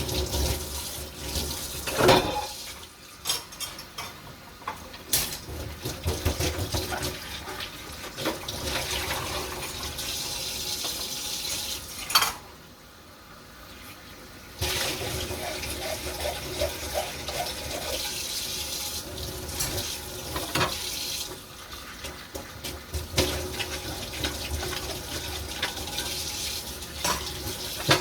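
Tap water running into a kitchen sink during hand dishwashing, with scattered knocks and clinks of dishes. The water stops for about two seconds around the middle, then runs again.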